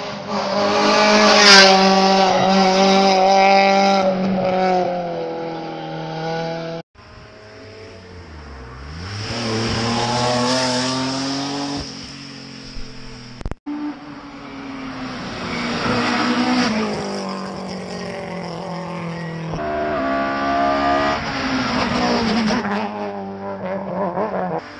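Rally cars at full throttle on a tarmac stage: three separate passes, each with the engine note sweeping up and down through gear changes, and one pass dropping in pitch and then climbing again. The sound cuts off abruptly twice between passes, and a sharp crack rings out about a second and a half in.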